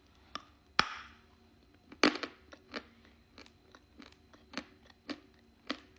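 Hard edible chalk (Turkestan 'slivka') being bitten and chewed close to the microphone: about a dozen sharp, irregular crunches, the loudest about two seconds in.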